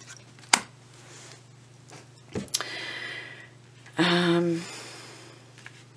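Tarot cards being handled on a table: a sharp tap, a duller knock, then a card sliding for about a second, followed by a short hummed 'mm' from a woman.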